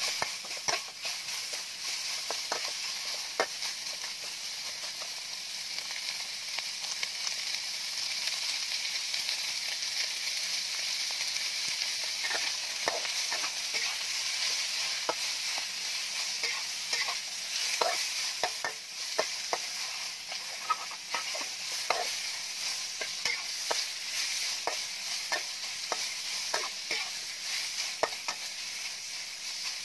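Chopped fatty pork sizzling steadily in a hot metal wok, stirred with a metal wok spatula that scrapes and clicks against the pan again and again at an uneven pace.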